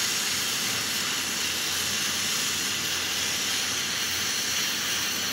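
Steady hiss of an HHO (oxyhydrogen) welding torch flame, burning hydrogen-oxygen gas made from water by electrolysis.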